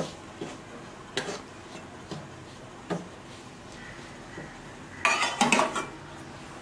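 A steel spoon stirring rice flour in a nonstick pan, mixing in hot water for idiyappam dough, with scattered scrapes and light knocks against the pan about a second apart. About five seconds in comes a quick run of ringing metal clinks, the loudest sound here.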